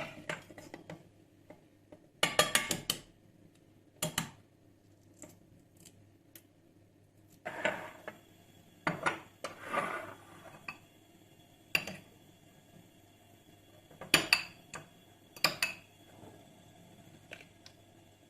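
Kitchen dishes and metal utensils clinking and clattering in scattered short bursts, including a quick run of clinks about two seconds in and louder knocks in the middle and later on.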